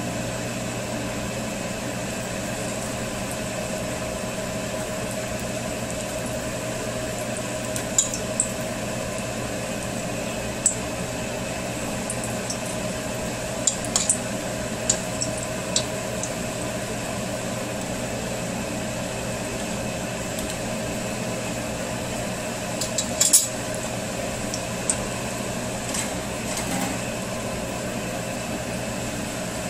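Doughnut holes deep-frying in a saucepan of 350-degree oil: a steady sizzle over a constant hum. Scattered sharp clicks of a wooden spatula against the steel pan, loudest in a short cluster about two-thirds of the way through.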